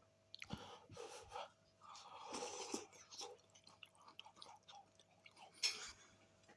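A person chewing and eating a mouthful of soft pasta bake, with small wet mouth clicks and a few louder bites and breaths.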